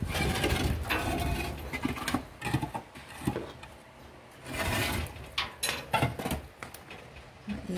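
Hollow concrete blocks scraping and knocking against each other and the truck bed as they are slid off and stacked by hand, in irregular bursts with short pauses between.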